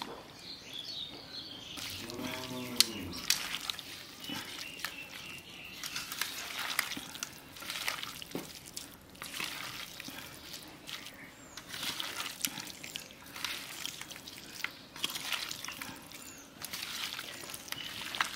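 Bare hands squishing and kneading raw chicken pieces with sliced onions, oil and spice paste in a steel plate: irregular wet squelching and crackling with a few sharp clicks. A short voiced call that rises and falls in pitch sounds briefly about two seconds in.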